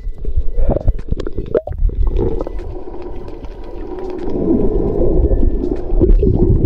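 Water heard underwater through a submerged action camera: a muffled low rumble and sloshing of moving water with scattered clicks, growing somewhat louder about four seconds in.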